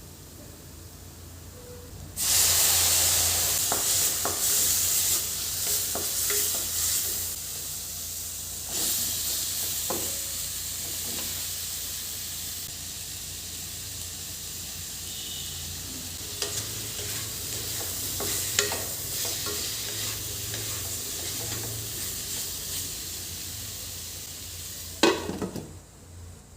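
Food sizzling in hot oil in a pan, starting with a sudden loud burst of hissing about two seconds in and surging again about nine seconds in, then slowly easing. Short clicks and scrapes of stirring run through it, and there is a sharp knock near the end.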